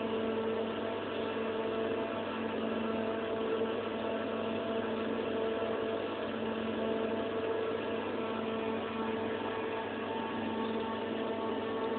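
Brother HS50A CNC wire EDM machine running with a steady, unchanging hum made up of several constant tones.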